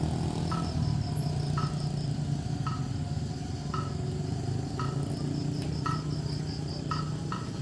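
An insect's high, fast pulsing trill, heard in two stretches, over a steady low hum, with a faint click about once a second.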